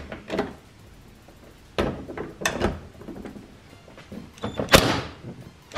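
Socket wrench on a long extension loosening the mounting bolts of a pickup's tow mirror: a few separate metallic clicks and knocks, the loudest a little under five seconds in.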